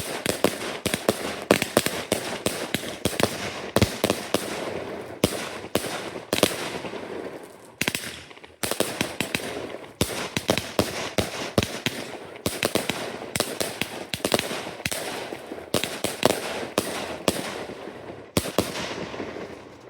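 Fireworks display going off in a dense volley of sharp bangs, several a second, with a constant crackling haze between them; a brief lull comes about eight seconds in, and the firing fades out at the very end.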